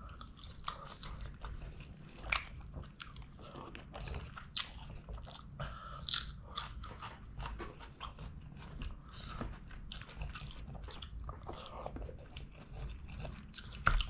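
Close-miked eating sounds: a mouthful of rice and chicken curry being chewed, with irregular wet smacks and clicks of the mouth. Near the end, a louder click as a hand presses into the rice and curry on a banana leaf.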